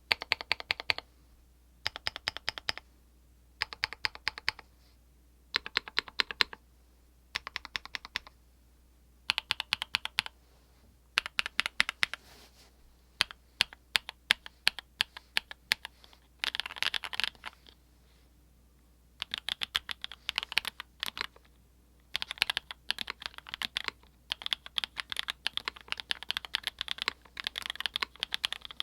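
Custom mechanical keyboard with lubed Everglide Peacock Blue linear switches on a polycarbonate plate being typed on. It goes in short bursts of keystrokes with pauses between them, then in a long run of fast typing from about 19 seconds in.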